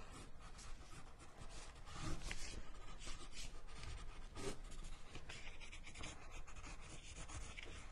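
Pencil scratching faintly across heavy paper in quick, irregular gestural sketching strokes.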